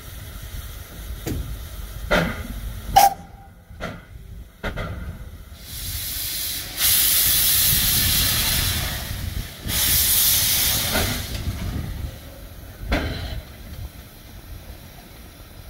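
Vale of Rheidol narrow-gauge steam locomotive No. 7, a 2-6-2 tank engine, venting steam from its cylinder drain cocks: two long, loud hisses through the middle and a shorter one near the end. A few sharp knocks come before them, the loudest about three seconds in.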